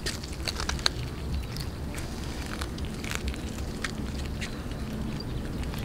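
Cats chewing raw fish close up: irregular wet clicks, smacks and crunches, over a steady low background rumble.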